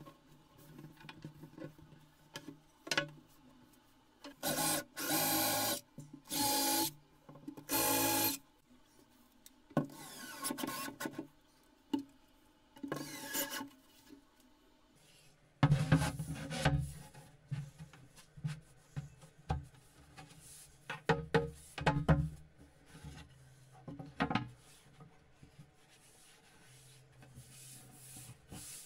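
Wooden and melamine panels and cleats being handled, slid and rubbed against each other, with scattered knocks. There are three loud rasping scrapes about five seconds in, and a cluster of heavier knocks and scrapes around the middle.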